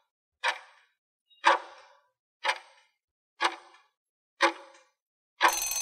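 Countdown timer sound effect: a sharp clock-like tick once a second, five times, then a ringing bell tone near the end as the count runs out.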